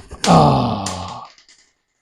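A man's strained groan of effort, about a second long and falling in pitch, with a sharp click partway through.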